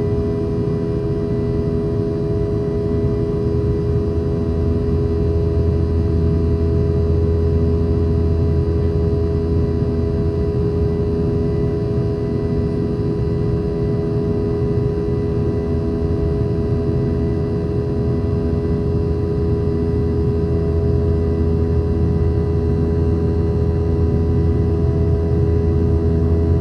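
Boeing 717-200's tail-mounted Rolls-Royce BR715 turbofan engines heard from inside the cabin: a steady, loud drone with a low rumble and several constant whining tones.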